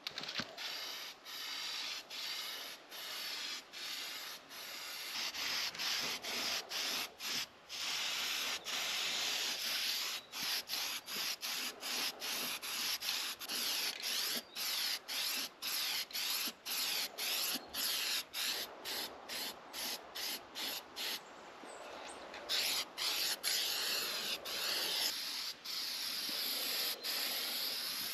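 Aerosol spray-paint can hissing in short bursts of about half a second to a second, broken by brief gaps as the nozzle is let go between passes. It softens for a moment about three-quarters of the way through, then carries on.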